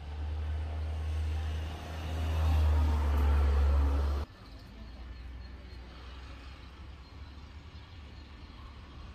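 Low engine rumble of a road vehicle passing close by, growing louder and then cutting off suddenly about four seconds in. After that only a faint outdoor background remains.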